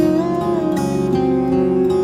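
Background music played on plucked strings, with one note bending up in pitch and sliding back down.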